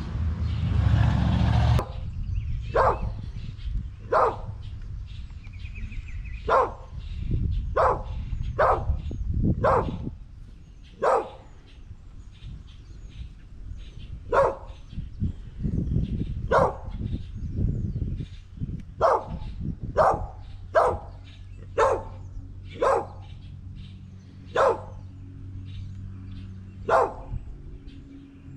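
Dogs barking: single short barks spaced about one to two seconds apart, kept up throughout. A loud rush of noise fills the first two seconds.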